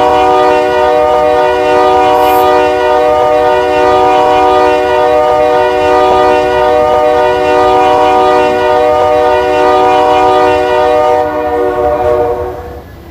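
BNSF SD60M locomotive's multi-chime air horn held in one long, steady chord, which stops near the end.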